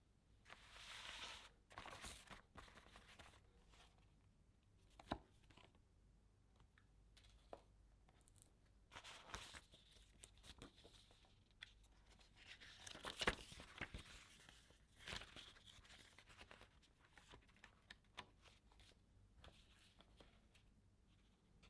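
Faint handling of packaging: several rustling, tearing swishes of wrapping material, with scattered light clicks and knocks between them.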